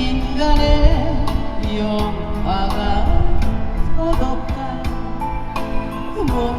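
A woman singing live over a backing track with a steady drum beat.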